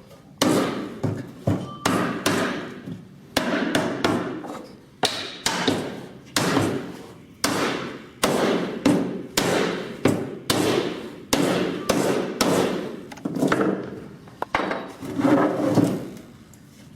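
A hammer knocking wooden mortise-and-tenon joints together in a repeated series of blows, about one or two a second at an uneven pace, each with a short ring.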